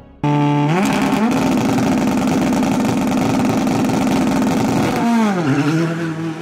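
Ford Fiesta R5 rally car's 1.6-litre turbocharged four-cylinder engine. About a quarter second in it revs up and is then held at steady high revs at the start line. About five seconds in the revs dip and climb again as the car launches away.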